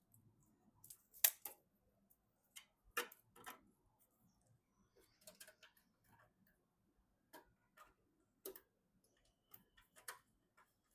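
Scattered light clicks and taps of computer hardware being handled and fitted during PC assembly, at irregular intervals; the sharpest click comes about a second in.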